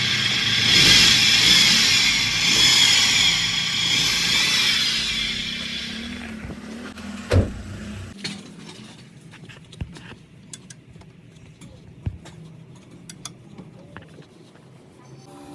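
Car engine running with a loud, hissing grind from the bad belt tensioner pulley bearing. The sound fades out and stops about seven to eight seconds in, with a single knock as it ends, followed by scattered light clicks.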